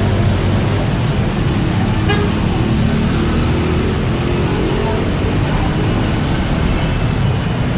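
Steady road traffic noise of passing motor vehicles, with a low engine hum.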